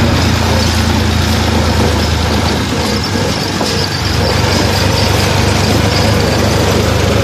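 Farm tractor engine running steadily while the tractor drives along, heard from the driver's seat, with a brief dip in its low note about three seconds in.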